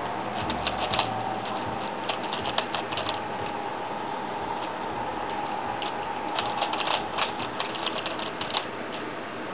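Plastic 3x3 Rubik's cube clicking as its layers are turned, in quick runs of turns (the Old Pochmann swap algorithms) separated by short pauses.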